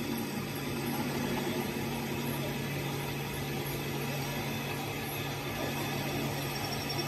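A machine motor running steadily, with a constant low hum under an even noise.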